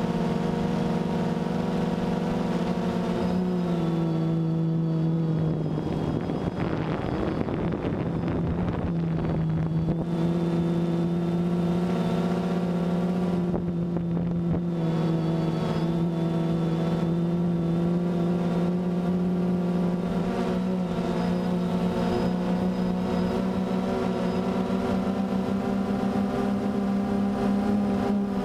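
DJI Phantom 2 quadcopter's motors and propellers humming steadily, the pitch stepping down slightly a few seconds in and shifting a little as it flies. A rushing noise joins the hum for several seconds about a quarter of the way in.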